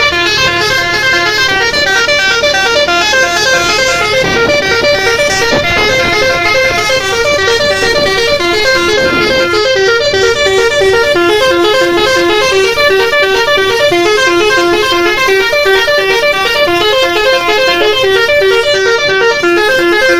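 Bus telolet horn, a Basuri multi-tone musical air horn, playing a fast melody of short stepped notes without a break, with a low rumble underneath.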